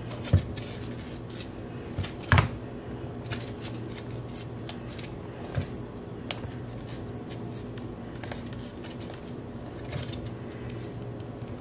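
Hands flexing and pulling at a silicone resin mold to free a cured resin heart: soft rubbing and creaking of the silicone with a few light knocks and clicks, the loudest about two seconds in, over a steady low hum.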